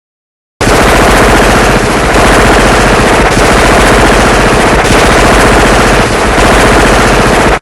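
Machine gun firing one long, loud burst: a rapid, unbroken stream of shots that starts abruptly and cuts off suddenly about seven seconds later.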